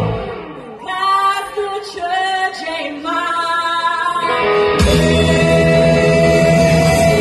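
Live blues-funk band: the band drops out and a woman sings a few lines alone, then the full band comes back in about five seconds in under a long held note.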